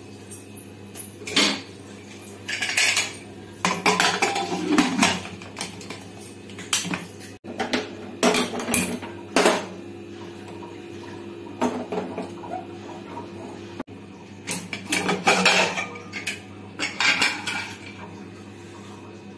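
Irregular metallic clanks and scrapes of a pressure cooker's lid and body being handled: the lid fitted on, the cooker moved about, and the lid taken off again.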